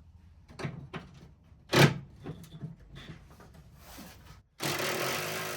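Knocks and clicks of car interior parts being handled while a front seat belt is unbolted and pulled out, with one sharp knock about two seconds in. Near the end a loud rasping noise lasts about a second and a half.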